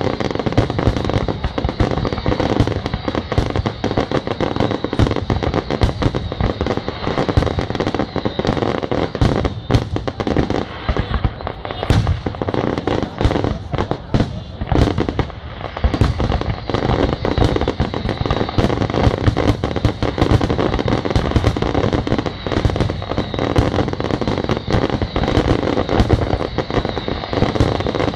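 Fireworks display: a dense, continuous barrage of bangs and crackles from exploding shells, thinning a little around the middle before building again.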